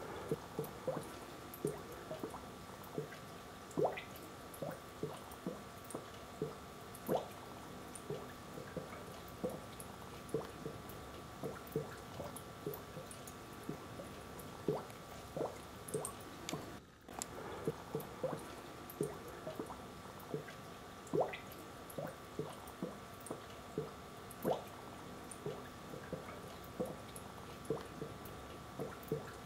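Air-operated treasure-chest aquarium ornament bubbling underwater, its lid lifting on the air: irregular wet pops and gurgles, a few a second with louder ones every couple of seconds, over a steady hum.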